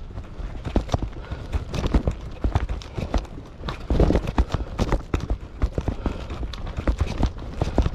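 Bicycle rattling and clattering over a rough, bumpy road surface: a fast, irregular run of knocks and clicks with a low rumble beneath.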